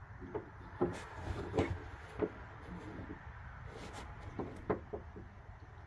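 Scattered soft knocks and scuffs on wooden deck boards as a large dog and a cat play-wrestle, the strongest about a second in, around two seconds and near the end.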